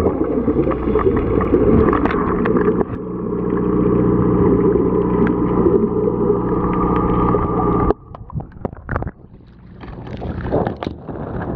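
Underwater, the steady hum of the dive boat's idling engine carries through the water, mixed with the gurgle of divers' exhaled regulator bubbles. About eight seconds in it cuts off abruptly, and after that there are surface sounds: water sloshing and wind.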